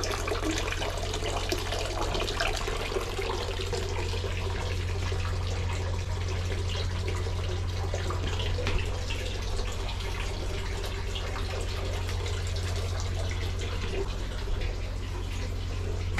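Hot-spring water running steadily from the spouts of an onsen drinking fountain and splashing into a stone basin, over a steady low hum.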